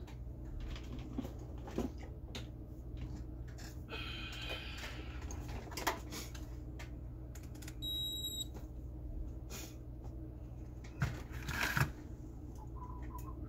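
Relay being bench-tested: scattered sharp clicks and handling noise over a steady low hum. There is one short, high electronic beep about eight seconds in, and a cluster of louder knocks a little later.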